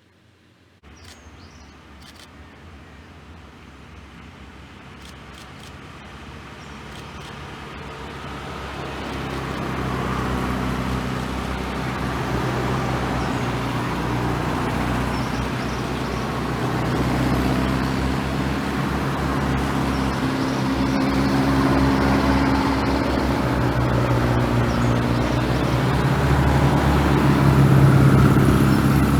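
Air-cooled Volkswagen engines running on the road, starting suddenly about a second in and growing steadily louder throughout.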